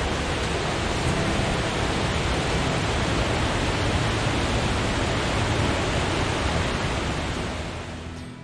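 Stamp Falls on the Stamp River: a waterfall's rushing water, a steady, even roar of noise that fades out near the end.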